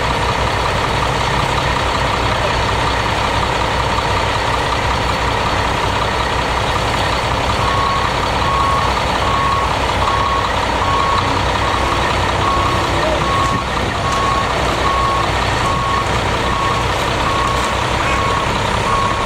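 Concrete pump truck's engine running steadily under load. About eight seconds in, a vehicle's reversing alarm starts beeping, about one and a half beeps a second.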